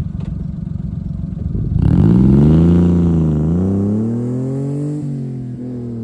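Honda Acty mini truck with a Wirus Win aftermarket exhaust idling, then pulling away hard about two seconds in. The engine note climbs and dips twice as it goes up through the gears, loudest just after the start, then fades as the truck drives off.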